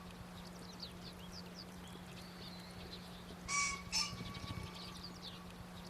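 A male green pheasant gives its loud, harsh two-note crow about three and a half seconds in. Small birds chirp throughout, over a steady low hum.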